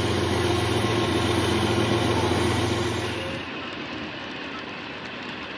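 Diesel locomotive engine sound of a passing Burlington cab-unit diesel, a steady low hum that drops off sharply about three and a half seconds in, leaving a quieter, even rumble of freight cars rolling by.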